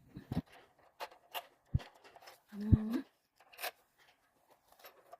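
Scattered sharp clicks and knocks of a plastic toy bird being handled and fed, with one short pitched sound, a toy squawk or a voice, a little under three seconds in.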